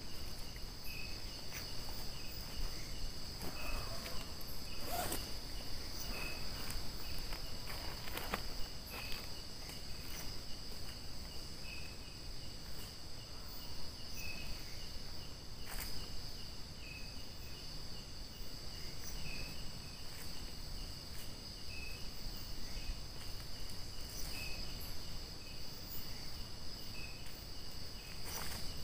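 Crickets and other insects: a steady high trill, with a short chirp repeating about every two seconds and a few faint clicks.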